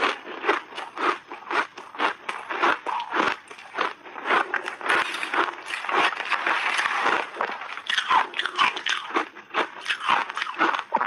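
Close-miked chewing of a mouthful of crunchy refrozen shaved ice: a fast run of sharp crunches, about two to three a second, running together into denser grinding crunching midway.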